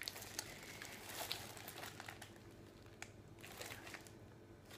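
Faint crinkling and rustling of gift packaging being handled, with a few scattered light clicks.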